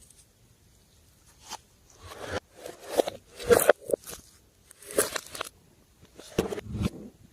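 Slime being squeezed and worked by hand: about five short squishing bursts with small clicks and pops, a second or so apart, the loudest about halfway.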